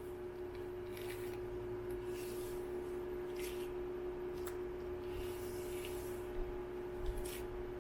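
Short, soft swishing strokes, several seconds apart, from wet hair being handled and worked through with a detangling pre-poo treatment, over a steady low hum.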